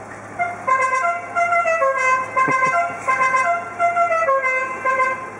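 Musical car horn playing a quick tune, its short notes stepping up and down in pitch for about four and a half seconds.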